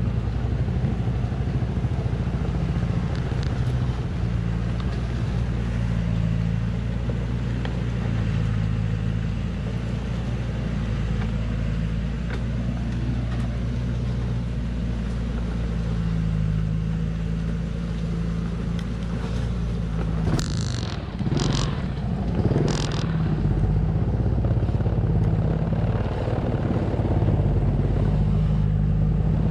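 Loaded log truck's engine pulling steadily at low speed along a muddy track, its note rising and falling a little. About two thirds of the way through come three short, sharp bursts of noise.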